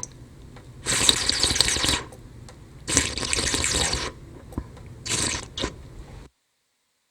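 Person slurping liquid loudly: two long slurps of about a second each, then a shorter one with a quick extra sip, over a quieter wet background that cuts off near the end.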